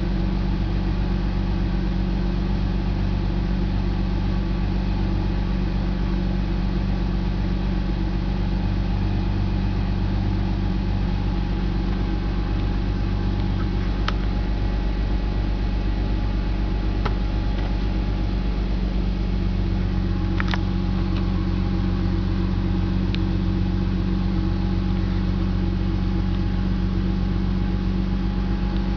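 BMW M54 2.5-litre inline-six idling steadily, with a few sharp clicks in the second half. The owner reports misfires in cylinders 3 and 5 when it runs cold.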